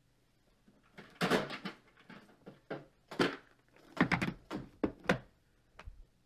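Irregular clicks and knocks of small hard plastic items handled on a desk, several in quick succession: embroidery floss being put away into plastic floss storage boxes.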